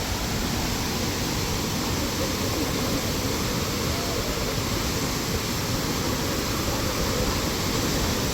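Steady rushing of falling water from a waterfall, an even, unbroken noise.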